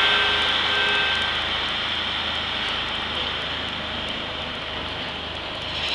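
SEPTA Broad Street Line subway train at an underground station platform: a steady, loud rush of train noise over a low hum, with faint steady tones in the first second or so.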